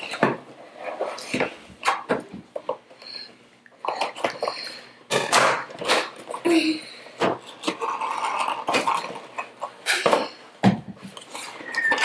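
Cardboard toy-set box being opened and handled: a string of rustles, scrapes and sharp clicks of cardboard.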